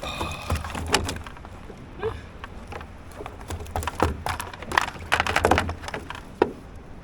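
Irregular knocks, thumps and clatter of handling on a fishing kayak, most frequent about five to six seconds in.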